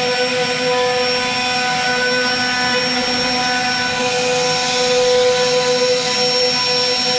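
CNC router spindle running steadily as its bit carves a relief into a wooden panel: a steady whine of several pitches over the hiss of the cut.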